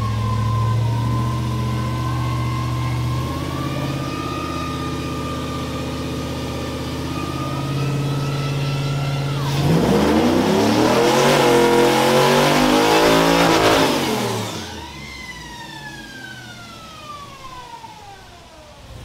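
2006 Chevrolet Trailblazer SS's cammed 6.0-litre LS2 V8 on a chassis dyno, running at a steady speed in gear for about nine seconds. It then makes a wide-open-throttle pull, revving up for about five seconds before the throttle snaps shut. A falling whine follows as the dyno rollers and driveline coast down.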